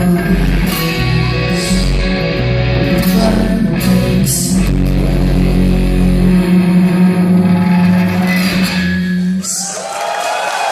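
Live band with electric guitar, bass and drums playing the final bars of a rock song and stopping about nine and a half seconds in, followed by audience applause.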